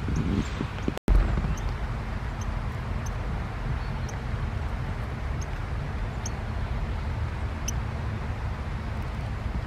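Steady rain hiss with a low rumble underneath, and short, thin, high-pitched calls of small birds repeating every half second or so. The sound cuts out briefly about a second in.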